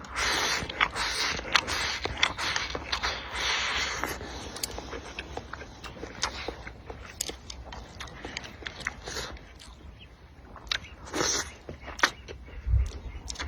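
A person eating noodles and fish: biting and chewing with scattered sharp clicks. There are denser, hissy stretches in the first four seconds.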